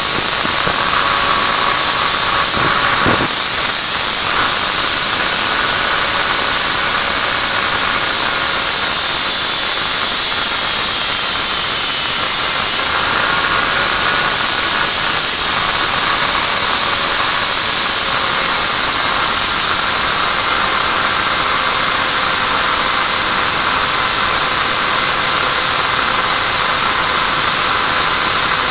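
Angle grinder with a small disc running at speed, a loud steady high-pitched whine, while grinding down the edge of a metal sewing-machine ring. The whine dips slightly in pitch a couple of times as the disc meets the metal.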